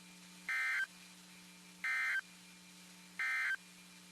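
Emergency Alert System data tones: three short identical bursts of warbling digital code, about 1.3 s apart, marking the end of the weather radio alert message. A low steady hum runs underneath.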